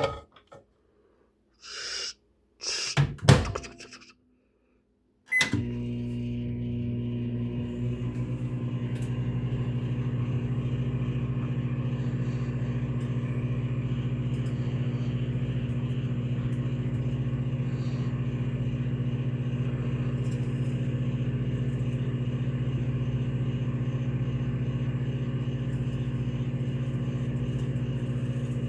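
A few knocks and clatter, then a click with a short beep about five seconds in, and a microwave oven starts running with a steady hum that carries on unchanged.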